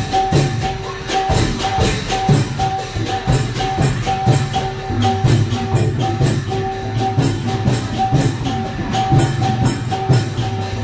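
Lively procession music: a quick, steady beat of clashing small cymbals over drums, with a steady held tone above the rhythm.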